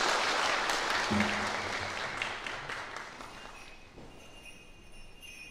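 Audience applause, dying away over the first three seconds. It is followed by faint, steady, high ringing tones.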